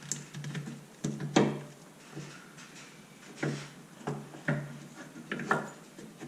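A stuck Corvette shock absorber knocking and clunking against its mount and the control arm as it is wrestled and pried, about eight knocks with the loudest about a second and a half in; the shock won't come out.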